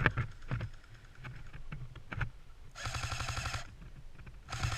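Airsoft electric gun firing two full-auto bursts, the first a bit under a second long about three seconds in, the second shorter near the end, each a rapid rattle of shots over the gearbox's motor whine. A few scattered clicks come before them.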